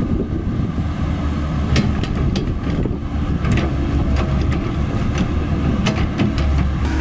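Komatsu PC130F-7 swamp excavator's diesel engine running steadily as the boom and bucket work, with scattered sharp clicks and clanks from the machine at irregular moments.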